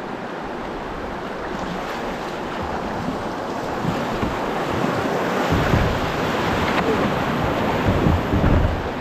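Rushing stream water with wind rumbling on the microphone. The rumble gets heavier from about halfway through.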